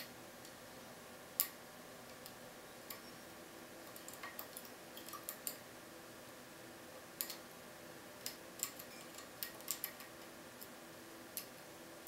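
Small, irregular metallic clicks and ticks of a lock pick working the pins inside a Keso 2000 cylinder (up to 15 pins on three axes), coming in scattered single clicks and short quick runs, the loudest about a second and a half in.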